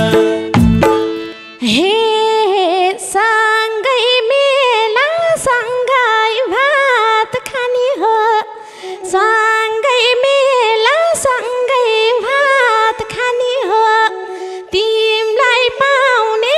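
Live Nepali dohori music: the full band with madal drums stops about a second and a half in. A woman then sings a slow, ornamented melody in phrases without drums.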